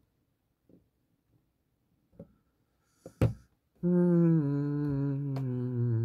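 A man humming one long closed-mouth "hmmm", starting a little past halfway and stepping down in pitch as it goes. A sharp click comes just before it.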